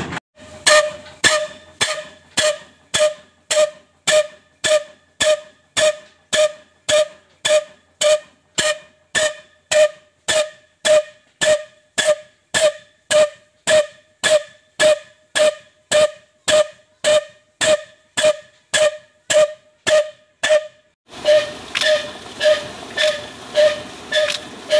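Insaf Daska slow-speed single-cylinder 'black' diesel engine running a tube well, its tall exhaust stack giving sharp, evenly spaced pops, a little over two a second. Near the end a steady rushing noise joins in under the beats.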